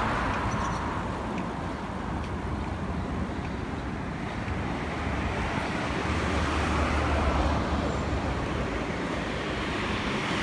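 Street traffic noise: vehicles passing on the road alongside, a steady hiss and rumble that grows louder in the middle of the stretch and eases off again.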